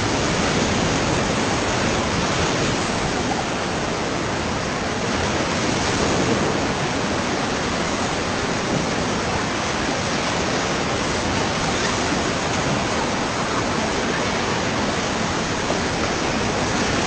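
Whitewater river rapids rushing, a steady loud roar of churning water that does not let up.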